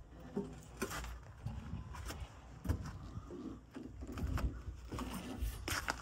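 Footsteps on dirt and scattered knocks and rustles of someone handling a phone while climbing down from a backhoe cab and walking alongside it, over a low rumble.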